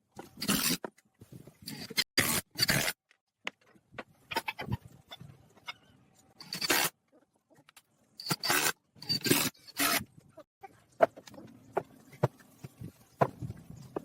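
A run of short, irregular scraping strokes, each well under a second, with light knocks and clicks in between.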